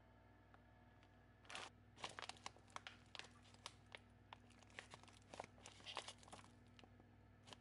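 A crinkly plastic pouch of spirulina powder being handled by fingers, giving a quick run of irregular crinkling crackles that starts about a second and a half in and goes on until near the end.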